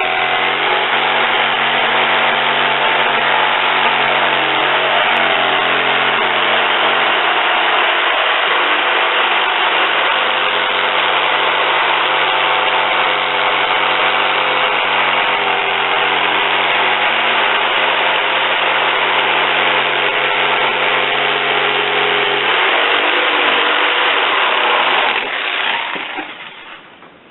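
A motor running steadily with a constant pitch that shifts slightly now and then. It dies away over about two seconds near the end.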